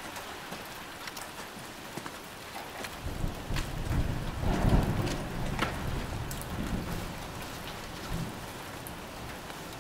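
Steady rain falling, with a roll of thunder that swells about three seconds in, peaks near the middle and fades out over the next few seconds. A few sharp clicks sound over the rain.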